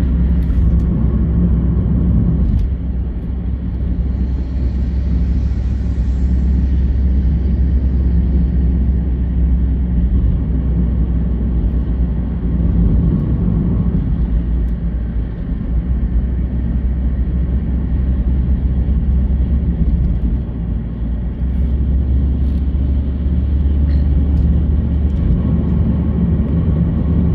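Steady low rumble of a car driving along a highway, heard from inside the cabin: engine and tyre road noise.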